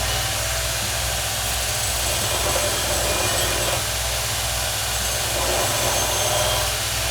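A power tool running steadily, a continuous machine whirr with a hiss over it.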